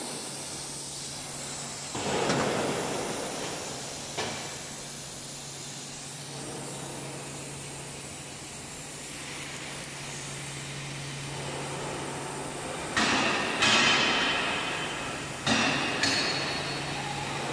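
Cut steel parts clanking and ringing as they are handled on the laser cutter's metal bed slats. Two knocks come in the first few seconds, then a cluster of four louder clangs near the end, over a steady low machine hum.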